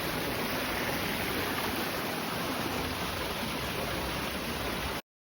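Steady rushing of running water, cutting off suddenly near the end.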